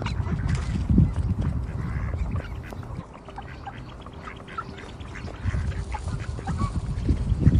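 Ducks quacking: many short calls overlapping, over a low rumbling noise that eases off in the middle and comes back near the end.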